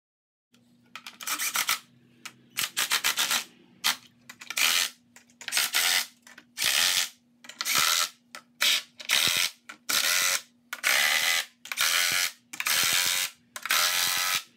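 Cordless impact driver with a socket running nuts down on the bolts of a guitar-body clamping fixture, in short rattling bursts about once a second as each nut is tightened.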